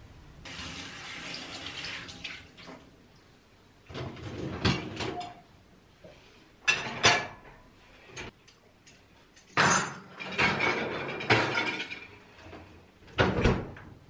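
Dishes, glasses and cutlery clinking in several short bursts as they are loaded into a dishwasher's racks, after a brief rushing sound at the start. Near the end comes a heavier thud as the Electrolux dishwasher's door is shut.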